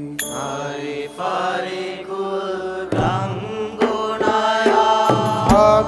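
Background music: a song with a sung, gliding melody over instrumental backing.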